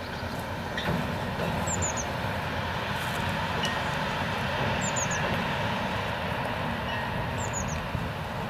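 Diesel railcar of class ALN 668 running steadily as it crosses a viaduct, its engine and wheels a continuous rumble that grows a little louder about a second in.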